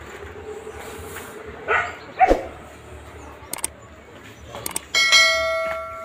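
A metal object struck once, ringing with several clear bell-like tones that fade over about a second. Earlier, two short loud cries and a few sharp clicks.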